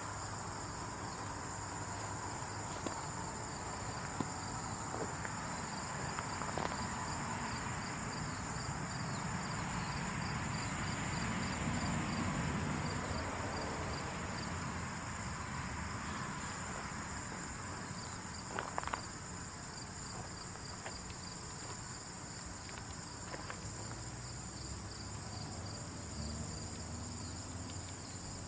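Insect ambience: a steady high chirring with a fast, evenly pulsing trill over a soft rustling hiss that swells around the middle, with a few faint clicks scattered through.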